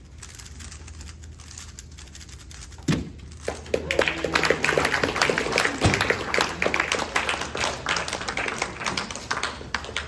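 Two sharp slaps on speedcubing competition timer pads as the cubers stop their solves, one about 3 s in and one about 6 s in, with a stretch of rapid clicking and clatter between and after them.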